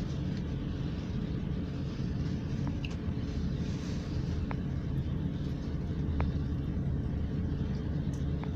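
Steady low rumble of a passenger train running, heard from inside the carriage, with a couple of faint clicks.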